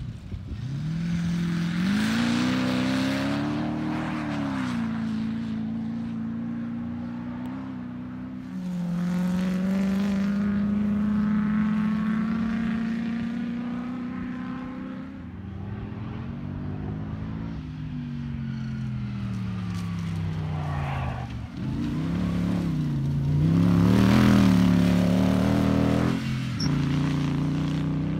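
Comp safari off-road race car engine revving hard as it is driven across a rough field. The engine pitch climbs and drops repeatedly with gear changes and throttle lifts, and is loudest near the end.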